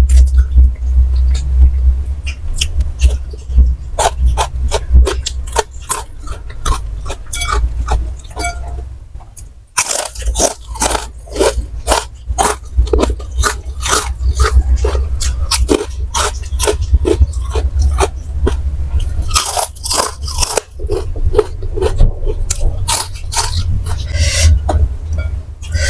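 Close-miked crunchy chewing and biting of fried snacks: a dense run of irregular sharp crunches over a low rumble, getting brighter and louder about ten seconds in as a fresh bite is taken.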